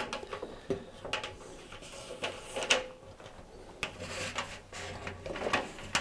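Scattered light knocks, clicks and rubbing as a new rubber drive belt is worked by hand around the stainless steel drum of an LG tumble dryer, one knock louder than the rest about halfway through.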